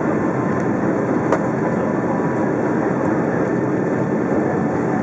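Cabin noise of a Boeing 757-200 on its landing roll with spoilers deployed: a steady, loud rumble of the wheels on the runway and the rushing air. A single light click sounds about a second in.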